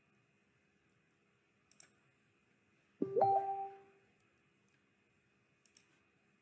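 Computer mouse clicking in quick pairs, twice. About three seconds in, a short electronic alert chime sounds with a quick upward sweep and a held two-note tone for about a second; it is the loudest sound.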